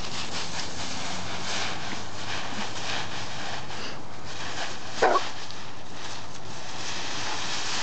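Dogs rustling through a thick layer of dry fallen leaves, with one short dog bark about five seconds in.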